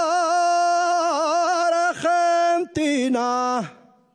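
A man singing an unaccompanied Asturian tonada: one long note held with a wide, even vibrato, then two shorter notes, the last sliding down and fading out shortly before the end.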